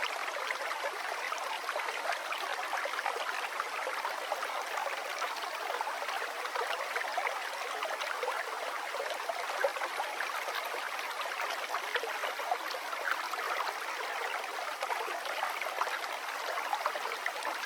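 River water flowing, a steady rippling babble made of many small splashes and gurgles.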